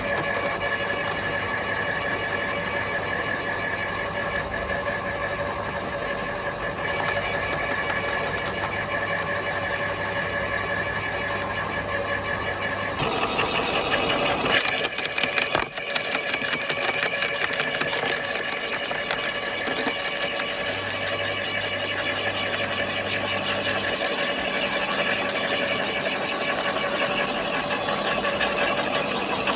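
Topshak WS1 electric garden shredder running steadily as branches are fed into it. About 13 s in it gets louder and brighter, and for a couple of seconds wood cracks and snaps as a stick is chewed through.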